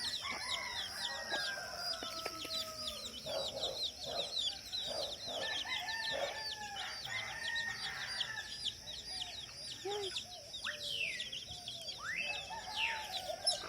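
Domestic roosters crowing and a hen clucking, over dense rapid high-pitched chirping from small birds or chicks and a steady high drone.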